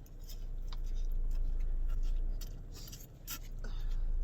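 Eating sounds: a few light clicks and taps of utensils against noodle bowls, spread irregularly over a steady low hum.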